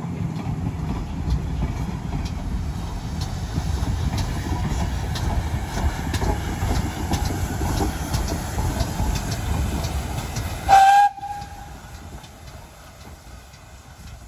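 A steam-hauled passenger train with two GWR Large Prairie 2-6-2 tank engines passing close by: a heavy rumble of coaches and wheels with regular clicks over the rails. About eleven seconds in, a short, loud, high steam whistle sounds once, and the rumble then drops away sharply to a faint running sound as the train moves off.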